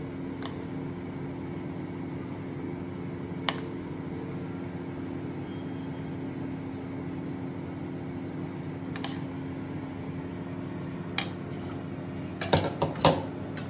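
A spoon clicking now and then against a plate while spreading a thick sauce over potatoes, with a quick run of louder clicks near the end. A steady low hum sits under it.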